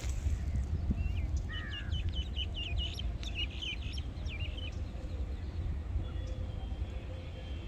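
A bird calling: a rapid run of short, repeated high notes, about five a second, starting about a second and a half in and lasting about three seconds, over a steady low rumble.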